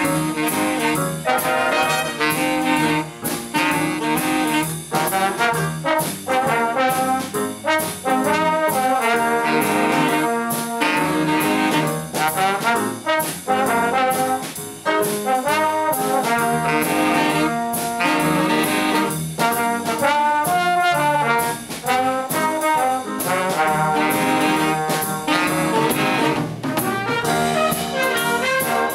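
A big band playing swing live: a saxophone section and brass carry the tune over a drum kit keeping a steady beat.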